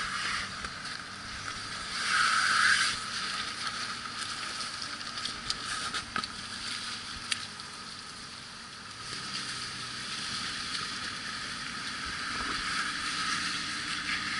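Dodge Durango SUV driving slowly off-road: a faint low engine hum under a steady rushing hiss, which swells briefly about two seconds in, with a few sharp ticks.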